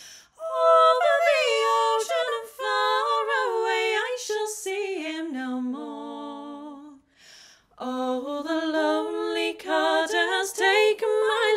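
A woman's voice singing unaccompanied, a slow sung line with long held notes and a short break about seven seconds in.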